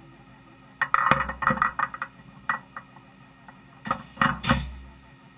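A face mill's steel tool holder being loaded by hand into a Fadal vertical machining centre's spindle. There are two clusters of metal clacks and knocks, about a second in and about four seconds in. The second cluster ends with a short burst of air and a clunk as the drawbar releases and clamps the holder.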